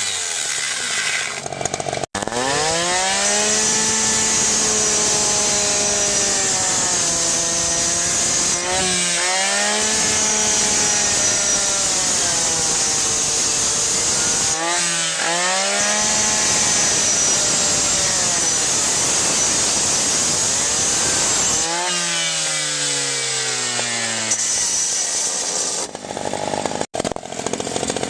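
Gas-powered Cutters Edge rescue saw with a Bullet Blade running at full throttle as it cuts paving block and a car's sheet-metal body. Between cuts the engine drops toward idle and revs back up several times. The sound breaks off abruptly twice.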